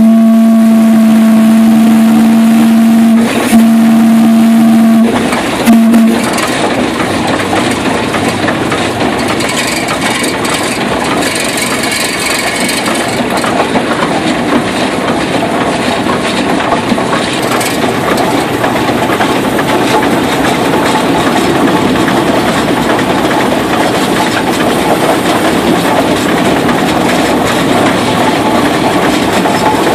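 Rumely steam traction engine's whistle blowing: a long blast that stops about three seconds in, a second blast, then a brief toot about six seconds in. After that the steam engine and its gearing run steadily as the tractor drives.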